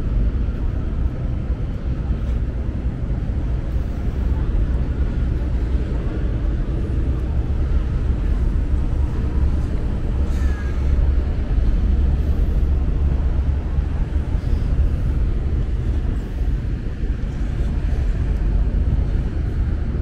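Steady low rumble of outdoor waterfront ambience: wind buffeting the microphone, mixed with engine noise from passing ferries and traffic.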